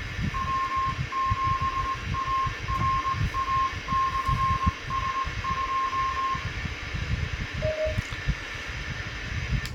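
Kenwood TMV-71A 2 m/70 cm transceiver's speaker playing a received signal over steady hiss and rumble: a string of short and long beeps at one pitch, like Morse code, for about six seconds, then a single short, lower beep near the end.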